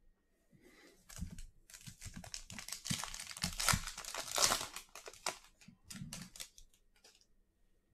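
Crinkling of a foil trading-card pack wrapper being handled and torn open, a dense crackle that swells in the middle and dies away near the end.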